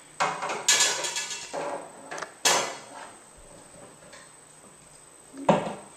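Knocking and clattering of a large plastic reservoir lid and a long thin rod being handled and fitted: a cluster of knocks in the first second and a half, a sharp knock around two and a half seconds in, and another near the end.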